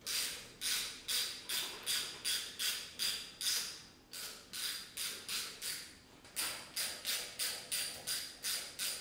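Socket ratchet turning a bolt by hand: a steady run of short metallic ratchet-click strokes, about two and a half a second, slowing briefly near the middle.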